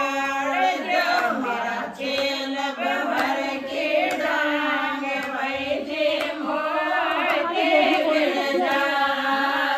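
A group of women singing a Shekhawati (Rajasthani) wedding folk song, a ratijaga geet, with voices only and no instruments, sung continuously into a microphone.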